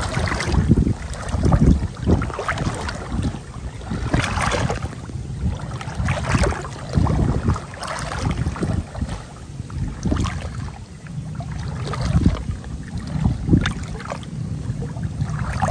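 Wind rumbling on the microphone outdoors, broken by irregular short rustling and splashing noises.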